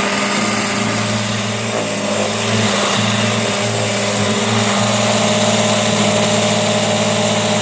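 An old Hoover Junior upright vacuum cleaner running steadily, its motor giving a steady hum under a loud hiss, as it sucks up spilt cereal from carpet.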